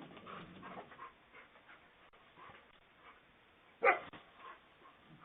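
Coyotes and a cornered fox yelping and barking: a quick flurry of short calls in the first second, then one loud sharp yelp a little before four seconds in, heard through a Ring doorbell camera's tinny microphone.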